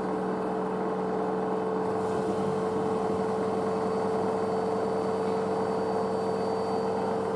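Front-loading washing machine in a high-speed final spin at about 1400 rpm: a steady hum with a constant motor tone, and a faint high whistle for a few seconds near the middle.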